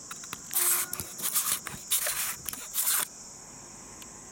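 Several bursts of rustling, scraping noise over about two and a half seconds, from the camera being handled and moved, over a steady high chirring of crickets.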